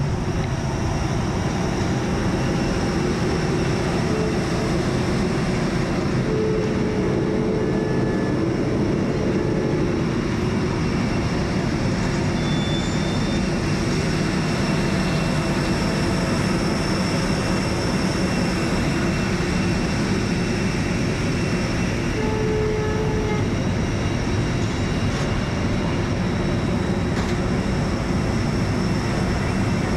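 Steady airport apron noise from parked jet airliners and ground equipment: a continuous drone with a thin high whine running through it, typical of an airliner's auxiliary power unit.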